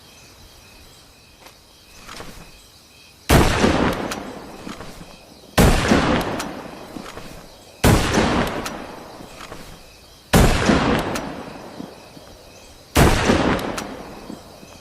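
Five rifle shots from a Winchester Model 70 bolt-action rifle, fired one at a time about two and a half seconds apart, each sharp crack followed by a long echo dying away.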